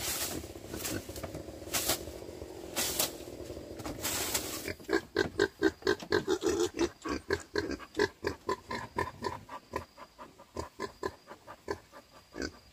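Pigs grunting in quick repeated pitched bursts, several a second, through the second half. A few sharp knocks come in the first few seconds.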